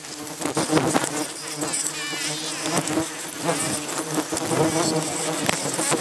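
A swarm of Trigona stingless bees buzzing loudly close to the microphone, roused by the opening of their hive, with many sharp clicks among the buzzing.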